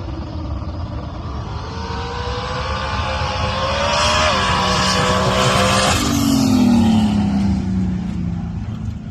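Turbocharged 5.3-litre V8 drag car making a pass. The engine note climbs steadily, dips briefly about four seconds in, and peaks in loudness. A little after six seconds the pitch changes abruptly and falls away steadily as the car runs on.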